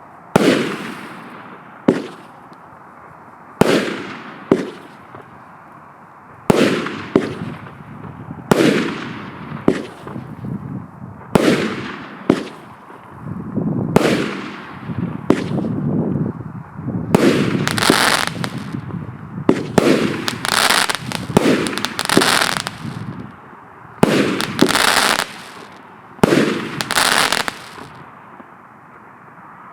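A 25-shot, 1.2-inch fireworks cake (Joker Fireworks 'Tantsuy' JF MC30-25/01) firing in sequence, with a sharp bang every one to two seconds and each shell bursting after it. In the second half the shots come closer together and the bursts trail off into long crackling from the crackling palm effects, before the cake falls quiet near the end.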